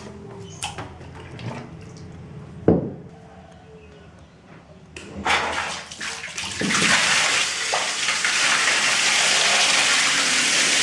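A few light handling knocks and one sharp knock, then about five seconds in water begins to gush and quickly becomes a steady, loud rushing jet of water from the hose of an Interdab GV180 submersible pump splashing onto a concrete floor.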